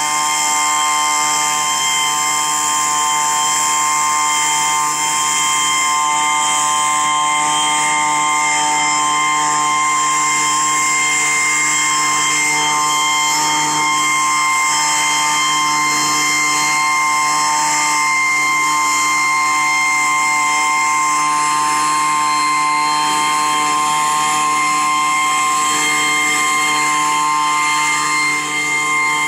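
Two-stroke handheld leaf blower running steadily, its engine and fan giving a loud, steady high-pitched whine over the rush of air as it blows diatomaceous earth powder across the garden.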